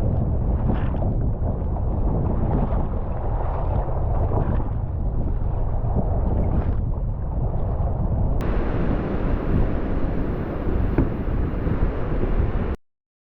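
Strong wind buffeting a GoPro microphone over the rush of ocean surf and water. The noise changes suddenly about eight seconds in and cuts off abruptly near the end.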